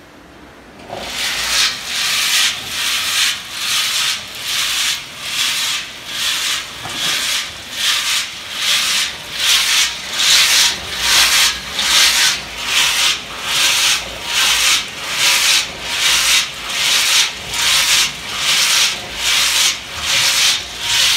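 Tea leaves tumbling inside the rotating stainless-steel drum of an electric tea fixing (roasting) machine: a rhythmic dry swish that repeats a little faster than once a second and starts about a second in.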